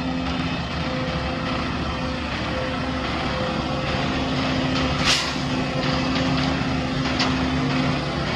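Heavy diesel machinery running steadily, with an even engine hum over a rumble. A short loud hiss comes about five seconds in, and a sharp click comes a couple of seconds later.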